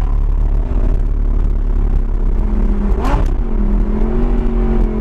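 Audi R8's 5.2 FSI V10 with a Fabspeed valved exhaust, running at low revs with a deep steady rumble, heard from inside the cabin. About three seconds in there is a brief whoosh, after which the engine note settles into a steady tone.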